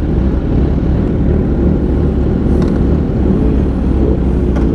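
Kawasaki Ninja 1000SX's inline-four engine idling steadily at a standstill, a low, even rumble.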